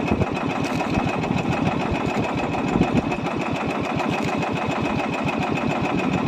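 Small engine of a motorized outrigger fishing boat running steadily under way, with a rapid, even pulse and no change in speed.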